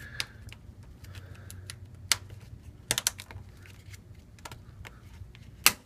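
Plastic guitar pick prying at the seam of a smartphone's housing: a string of irregular sharp clicks and ticks, with a few louder snaps about two and three seconds in and near the end as the plastic edge catches and clips let go.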